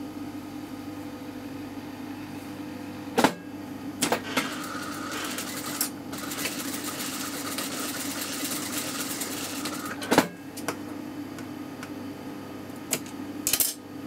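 Toyota sewing machine stitching in one run of about six seconds, from about four seconds in to about ten. Sharp clicks and knocks come just before and after the run and again near the end, over a steady low hum.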